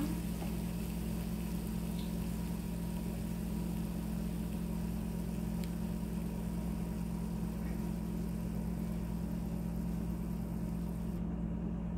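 Steady low mechanical hum of a motor running, with a faint click or two.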